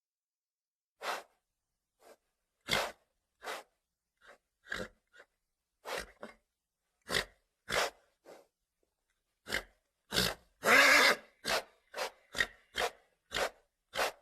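A horse giving a string of short snorts and grunts at uneven intervals, with a longer, louder one about eleven seconds in.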